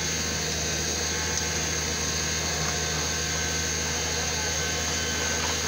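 Komatsu 901XC forest harvester's diesel engine running at a steady speed, a constant low hum with a steady high-pitched whine over it.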